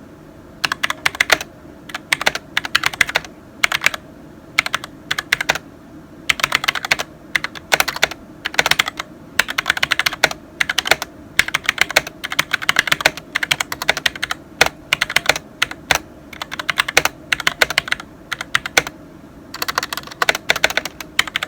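Typing on a SteelSeries Apex 7 mechanical gaming keyboard: quick runs of key clicks broken by short pauses.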